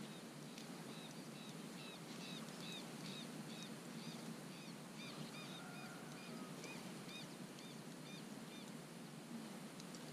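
A bird calling in a quick series of short arched chirps, about two to three a second, which stop about seven seconds in, over a steady low background hum.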